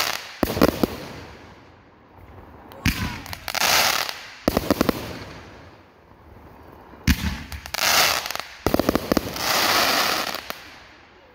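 Aerial fireworks shells bursting overhead in three rounds, about every three to four seconds. Each round is a bang or two, then a quick string of cracks and about a second of crackling hiss from the glittering stars.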